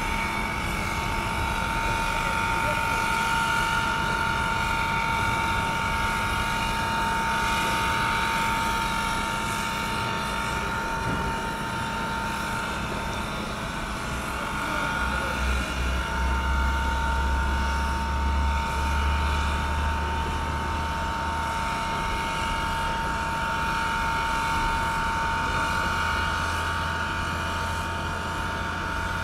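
Reading & Northern 425, a 4-6-2 Pacific steam locomotive, standing with steam up: a steady whine over a hiss of steam. A low hum joins about halfway through.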